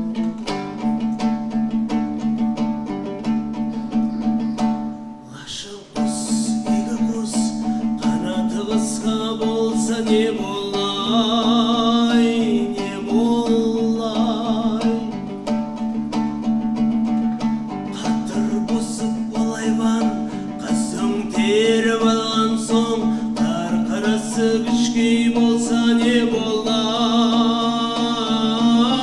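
Rapid, steady strumming on a dombra, the long-necked two-stringed Nogai lute. It breaks off briefly about six seconds in, then a man's voice comes in about eight seconds in and sings over the strumming, with a bending, ornamented melody.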